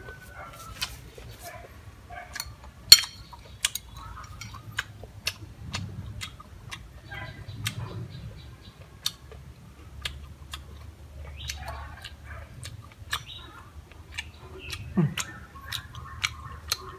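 A person eating stir-fried corn with a metal spoon from a ceramic plate: scattered sharp clicks of the spoon on the plate, and chewing. The loudest click comes about three seconds in.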